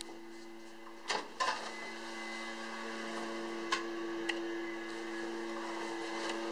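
A low, sustained suspense drone from the film score, a few steady held notes that start abruptly and swell slightly. Over it, a couple of thuds about a second in and two sharp taps around four seconds in as a sneakered foot steps onto the tile floor.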